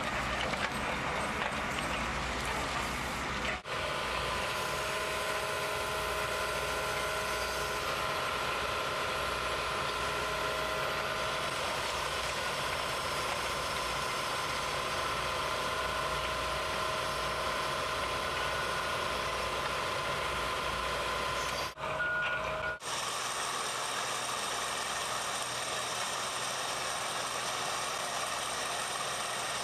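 Heavy machinery engines running steadily, in several clips cut one after another. Through the middle stretch a steady high whine sits over the engine.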